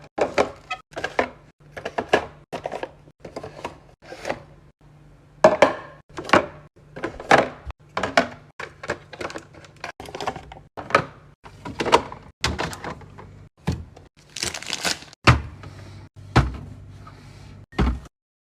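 Food packages and containers being set down and stacked in a fridge: an irregular run of knocks, clacks and rustles, with a few heavier thuds near the end. A faint steady low hum runs underneath.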